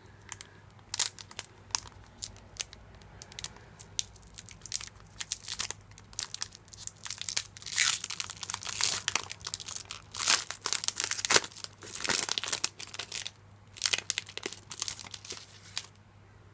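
Foil wrapper of a Pokémon card booster pack being torn open and crinkled by hand: a long string of sharp crackles, densest in the middle and thinning out near the end.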